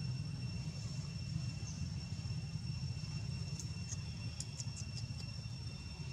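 Outdoor ambience: a steady low rumble under a constant high thin whine. Just past the middle comes a quick run of about six short high squeaks or chirps.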